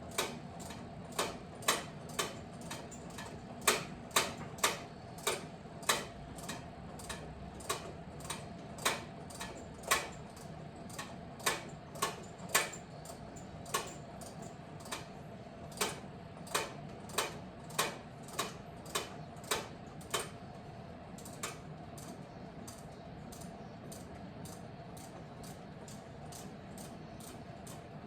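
Hand socket ratchet clicking as a long riser bolt is run down by hand, about two sharp clicks a second, the clicks growing fainter for the last several seconds.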